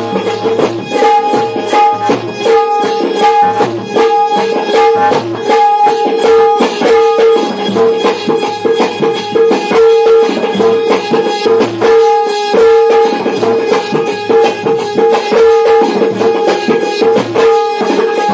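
Live Indian folk music: hand drums play a fast, busy rhythm under a melody instrument that keeps sounding one strong held note.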